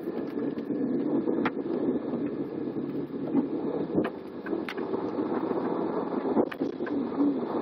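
Coach engine and rolling noise heard from inside the cabin, a steady low rumble with a few sharp clicks or knocks scattered through it.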